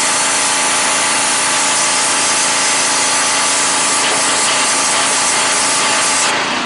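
Gas-engine pressure washer running with its water jet spraying: a loud, steady hiss over the engine's hum. Near the end the spray's hiss drops away, leaving the engine running.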